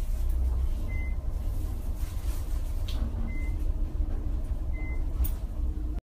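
Steady low rumble of a car, heard from inside the cabin, with three short high beeps, unevenly spaced: about a second in, a little after three seconds, and near the end.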